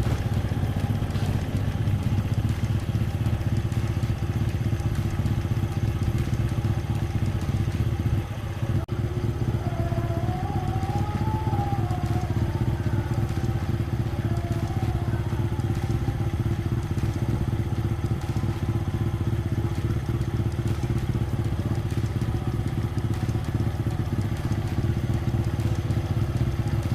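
Honda Supra X 100's single-cylinder four-stroke engine idling steadily while warming up.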